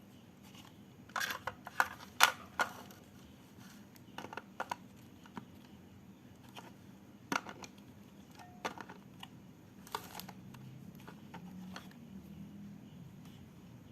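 Irregular sharp clicks and taps from handling a handheld two-way radio and its parts, in a cluster about one to three seconds in and scattered after that.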